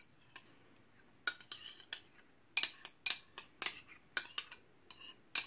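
Metal spoon clinking and scraping against bowls while yogurt is scooped out and tapped off into the batter bowl: a few sharp clinks at first, then several a second from about halfway through.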